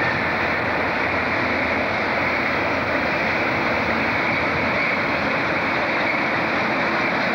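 Diesel locomotive, a Class 37, passing with a train of hopper wagons: a steady, even rumble of engine and wheel noise with no clear beat.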